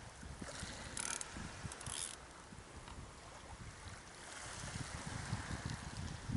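Surfcasting reel being worked with the rod under load, giving two short mechanical rasps about one and two seconds in, over wind buffeting the microphone; a soft hiss swells in the second half.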